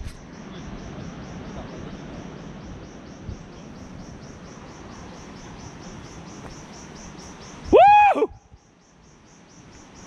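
Insects chirping in a steady, high, fast-pulsing rhythm over a soft background rustle. Near the end a single loud call rises and falls in pitch.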